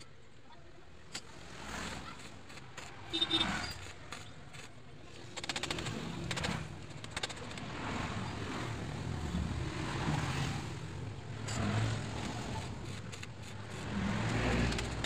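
Irregular metallic clicks and scrapes from pliers working on a motorcycle's splined shaft. About 14 seconds in, an arc welder strikes and crackles with a low hum as weld is built up on the shaft for re-splining.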